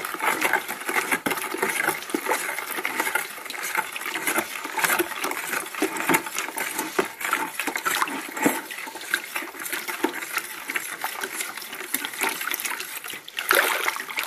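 A spoon stirring sugar into hot water in a plastic bucket, scraping and knocking against the sides and bottom with many irregular clicks over swishing water, as the sugar dissolves.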